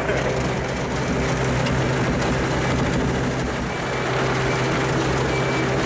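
Excavator's diesel engine running steadily as the machine is driven along on its tracks. This excavator has a mechanical fault that keeps making it shut off mid-operation, but here it keeps running.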